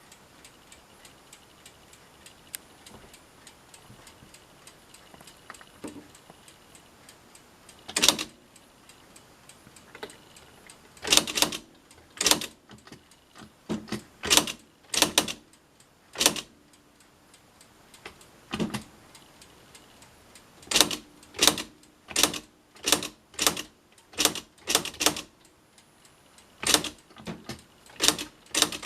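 Smith-Corona SE100 daisywheel electronic typewriter printing. The print hammer strikes the rotating daisy wheel in sharp, irregular bursts of several strikes a second, starting about eight seconds in. Before that there are only faint light ticks.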